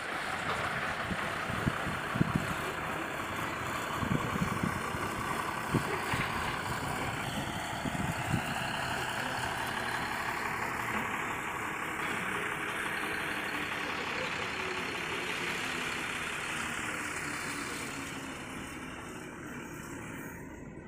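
Truck engine running as a steady noise, easing off near the end, with a few sharp knocks in the first eight seconds.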